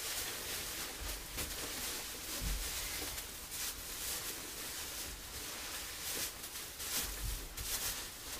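Wood shavings rustling and swishing as they are pulled from a bag and scattered by hand over a coop floor. The rustles come in short spells every second or so, with a few soft low thumps.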